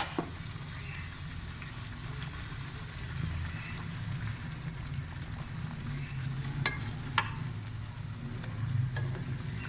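Chicken in a yogurt-and-spice masala sizzling in hot oil in a karahi as it is stir-fried, with a couple of sharp clicks of the spoon against the pan about two-thirds of the way through.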